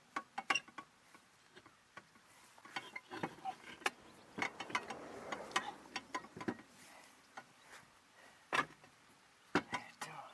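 Irregular sharp clicks and knocks of hand tools and car parts being handled during rear brake and wheel work, with a brief scraping rustle about halfway through.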